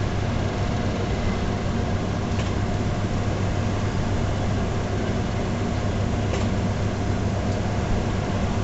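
Steady drone of airport ramp machinery, such as an airliner's auxiliary power unit or a ground power or air-conditioning unit, with a low hum and a thin, steady whine.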